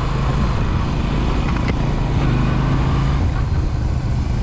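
Motorcycle engine running at a steady low speed while riding, with wind rush on the microphone.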